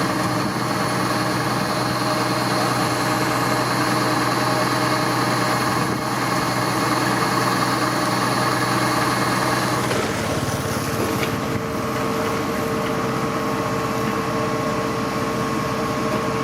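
Kubota DC-70 rice combine harvester's diesel engine and drive running steadily. About ten seconds in the sound changes: a high whine and a low hum drop out, and a different steady machine note carries on.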